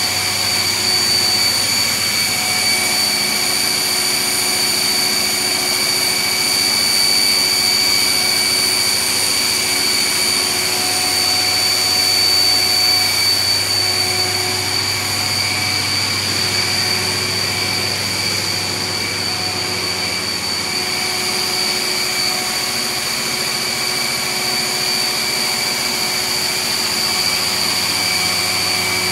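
Engine room of a Great Lakes bulk freighter with its large diesel machinery running: a loud, steady mechanical din with a constant high whine over it.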